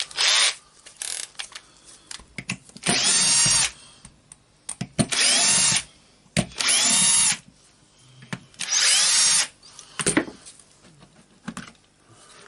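Cordless electric screwdriver run in about five short bursts, each rising in pitch as the motor spins up, backing out screws, with a few small clicks of metal parts between bursts.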